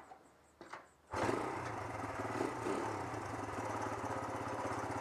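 An engine running steadily with a fast, even pulse, starting about a second in after a few faint clicks and cutting off abruptly near the end.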